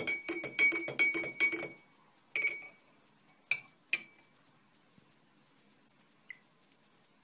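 Metal teaspoon stirring in a drinking glass of liquid, clinking against the glass about five times a second for nearly two seconds, each clink ringing briefly. Then three single clinks of the spoon on the glass, and a faint one near the end.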